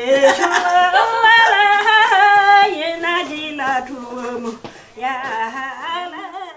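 An elderly woman singing unaccompanied: one voice holding a melody of long notes, breaking off briefly about four and a half seconds in, then wavering on ornamented notes near the end.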